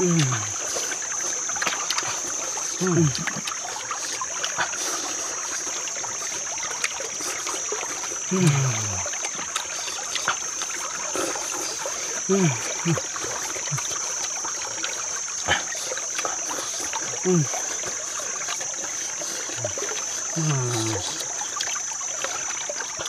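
Forest ambience: a steady high insect drone over a constant watery hiss, with a short low falling call repeated every few seconds, sometimes twice in quick succession. A single sharp click comes about two-thirds of the way through.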